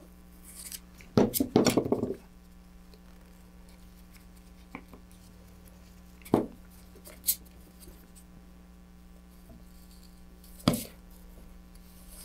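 Bench handling noises as a wooden stir stick and an epoxy mixing dish are worked on a workbench: a short burst of clatter and knocks about a second in, then two single sharp knocks later on, with a few faint ticks between, over a faint steady hum.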